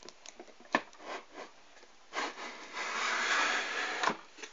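Handling noise: a few light knocks, then about two seconds of scratchy rubbing as the phone brushes against the toy barn's plastic walls.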